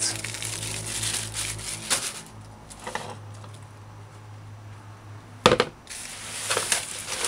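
Plastic bag crinkling as it is twisted and tied shut, then a sharp knock about five and a half seconds in as a plastic bowl is set down, followed by rustling of callaloo leaves being handled.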